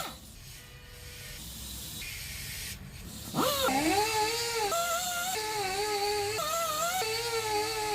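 Background music: a melody with sliding, wavering notes drops out for about three seconds at the start, then comes back in with a rising swoop.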